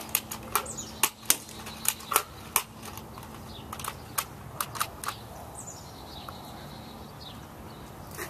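A run of about a dozen sharp clicks and taps at an uneven pace, from Nerf dart target practice: the blaster firing and foam darts striking the door. They stop about five seconds in, leaving a few faint high chirps.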